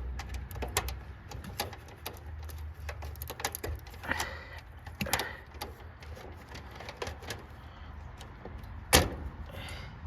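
Irregular clicks and small knocks from hands and meter leads working in a heat pump's control panel, with one sharp, loud knock about nine seconds in, over a low steady rumble.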